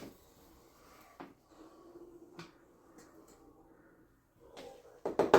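A utensil scraping and knocking against a baking pan as egg bake that has stuck to the pan is lifted out: a few single knocks about a second apart with faint scraping between, then a quick run of louder scrapes and knocks near the end.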